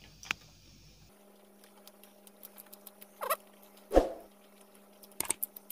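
Mouth sounds of a man eating rasgulla with his mouth full: faint wet clicks, then two short squeaky, muffled vocal noises about three and four seconds in, the second one loud.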